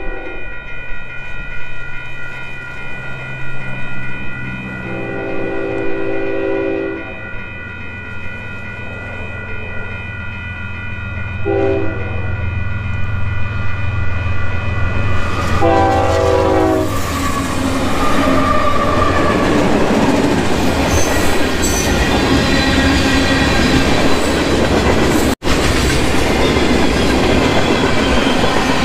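Freight train's horn sounding the grade-crossing signal: the end of one long blast, then a second long blast, a short one and a final long blast. Under it are the ringing of the crossing bell and the rumble of the approaching diesel locomotive. From about halfway through, the train passes the crossing, with the loud rolling clatter of wheels on the rails as the tank cars go by.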